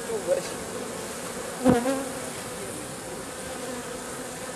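Honeybees buzzing at the hive entrance as they crowd the landing board and fly in and out, a steady, slightly wavering hum. A short loud bump about a second and a half in, followed by a brief louder buzz.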